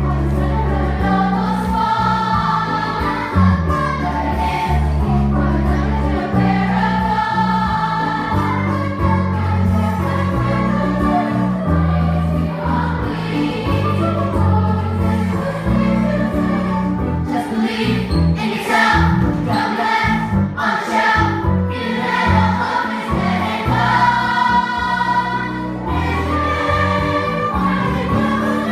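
A youth chorus singing a musical-theatre song together over instrumental accompaniment with a moving bass line.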